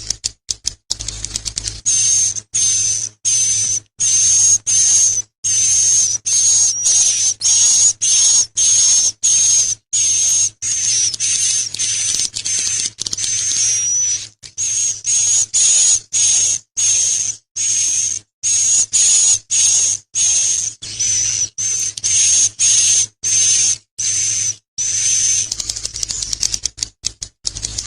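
A bird's high, buzzy chirping calls, each a fast rattle, repeated close to two a second in a long steady series, over a faint electrical hum.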